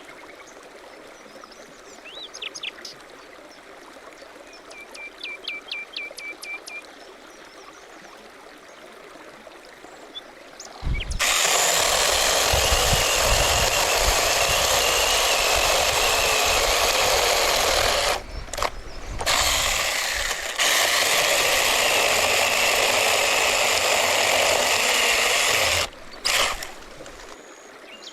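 Birds chirp over a quiet background. About eleven seconds in, a rototiller's small petrol engine comes in suddenly and runs loud and steady, dipping briefly a few times near the end.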